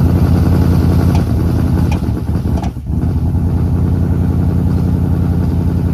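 Ford Coyote 5.0 V8 of a 2015 Mustang GT running steadily just after its first start on a freshly fitted 2018 GT intake manifold and new tune, with a brief dip in level nearly three seconds in.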